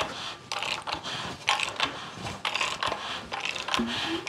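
Valvetrain of a VW air-cooled 40 hp engine clicking and ticking irregularly as the engine is turned over by hand, its solid-shaft rocker arms pushing the valves open against their springs and letting them close.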